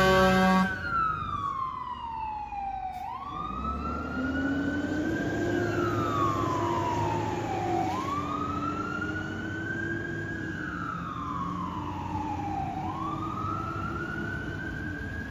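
Fire rescue truck's air horn blast cuts off just under a second in. Its siren then wails, sliding slowly up and down about every five seconds, over the low hum of the truck's engine.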